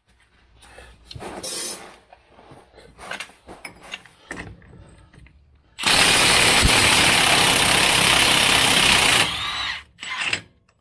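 Cordless impact wrench hammering at the pinion nut on a Dana 44 axle's pinion flange. It runs for about three and a half seconds, stops, and gives a short second burst near the end. Light knocks and rattles from parts being handled come before it.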